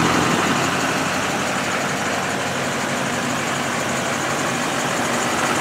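A diesel truck engine idling steadily, the 2008 Chevy 2500HD's 6.6-litre LMM Duramax V8, growing slightly louder near the end.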